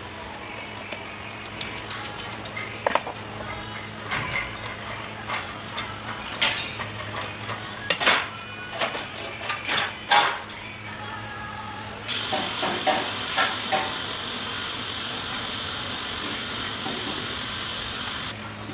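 Metal clinks and knocks as a bevel gear is handled and fitted into a Kubota B1502 front axle housing, the loudest about eight and ten seconds in. About twelve seconds in a steady high hiss begins, with a few more clicks, and stops just before the end.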